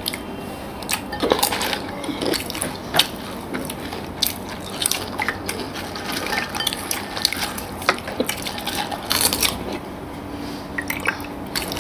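Close-miked eating noises at a table: irregular small clicks, taps and wet mouth sounds from chewing syrupy rasgulla and pantua sweets and from cutlery against plates.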